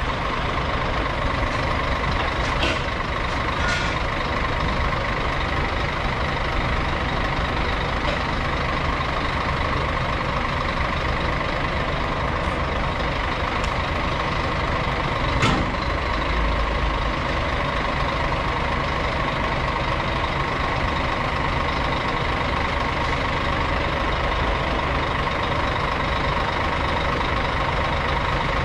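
A truck-mounted loader crane at work, its truck's diesel engine running steadily with a steady whine over it. A sharp knock comes about fifteen seconds in.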